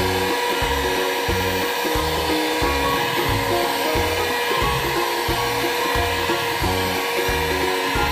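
Background music with a bass line, over the steady whine of an electric hand mixer running at low speed as it beats flour into whipped egg batter.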